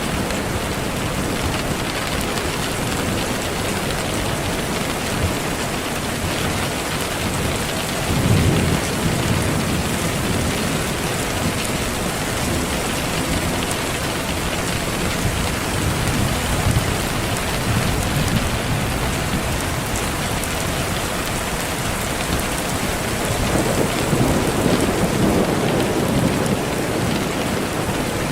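Steady heavy rain with low rolls of thunder, the clearest about eight seconds in and again from about 24 seconds.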